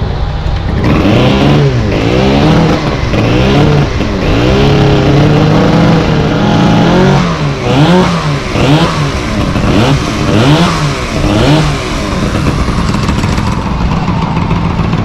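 Antique Disston chainsaw with an air-cooled, Mercury outboard-derived two-stroke engine, running loud and revved up and down over and over, about once a second. It settles into a steadier run near the end.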